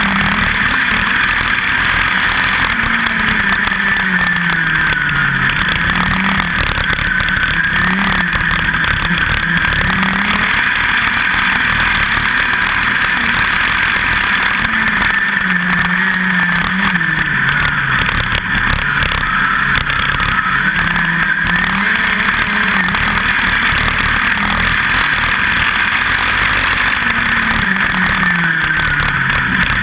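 USAC midget race car engine at racing speed, heard from on board: its note sweeps up and then drops back every few seconds as the car accelerates and lifts, lap after lap.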